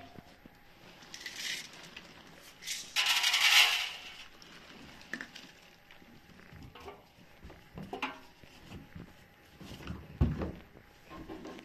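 Stuffed toys in mesh laundry bags being handled and put into the drum of a front-loading washing machine: a loud rustling scrape about three seconds in, scattered light knocks, and a soft thump near the end.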